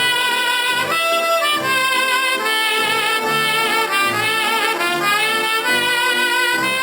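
Orchestral cartoon score with brass playing a lively melody over a bass line that steps along at a steady pace.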